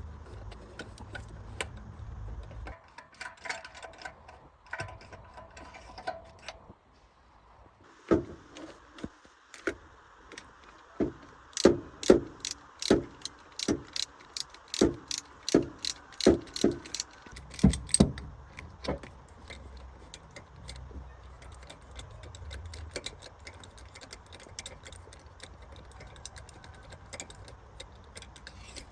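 Metal clinking and knocking: a run of sharp knocks, about two a second, with some ringing, over a steady low hum.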